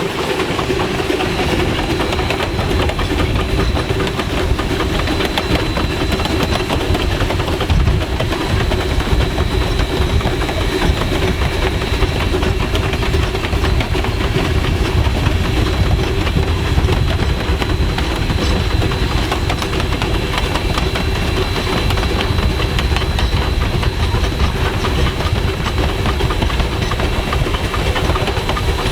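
Passenger train hauled by ten-wheeler steam locomotive 152 running on the rails: a loud, steady rumble of the train in motion.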